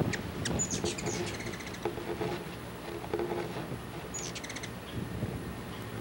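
Hummingbirds chattering: twice, about half a second in and again about four seconds in, a high chip is followed by a quick run of dry clicks.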